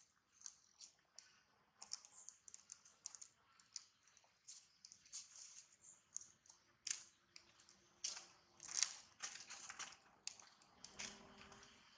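Baby macaque gnawing on a twig: faint, irregular runs of small clicks and crackles, loudest in the second half.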